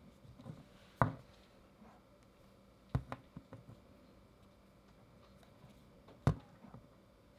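Three light knocks of a vinyl Funko Pop figure set down on a desk, about a second in, at three seconds and just after six seconds, each followed by a few faint handling taps.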